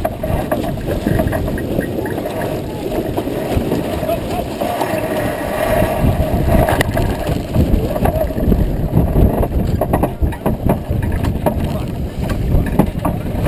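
Wind buffeting the microphone and water rushing along the hull of a heeled racing sailboat, with the headsail flapping and rattling as the boat tacks about halfway through.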